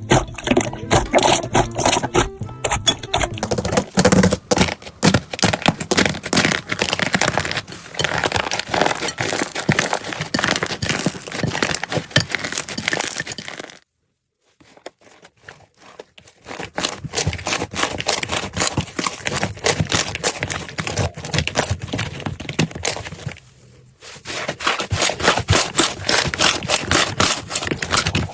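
Slime being squeezed and pressed by hand, making dense crackling and popping. There is a break of about two seconds near the middle.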